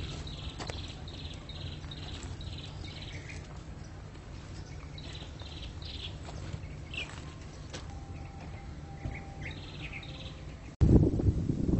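Birds chirping: runs of short, quick, slightly falling calls repeated over a low steady hum. Near the end it cuts suddenly to a louder rumbling noise.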